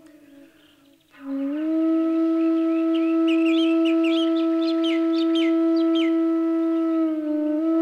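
Bamboo flute (bansuri) playing. After a brief near-quiet gap it slides up into one long steady note about a second in, then moves on to shorter changing notes near the end. Birds chirp in the background.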